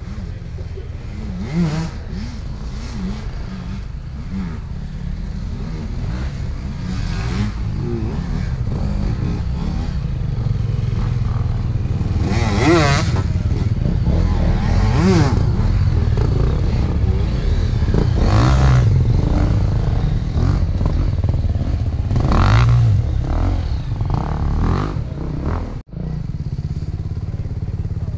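Two-stroke Husqvarna enduro motorcycle being ridden, its engine running steadily and revving up in repeated bursts, about four times.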